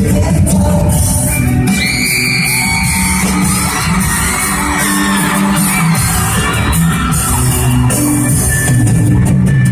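Live pop-rock band playing loudly, with drums, bass and singing, and the crowd screaming and cheering over it, as heard from the audience in a large hall.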